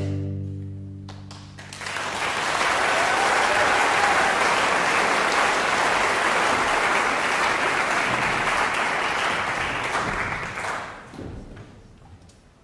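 A string orchestra's last chord rings out and dies away, then the audience applauds for about nine seconds, the clapping tapering off near the end.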